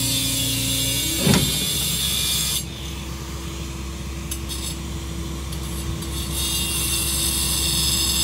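John Deere compact track loader engine running, its pitch rising just before a single loud clunk about a second in, then settling into a steady hum.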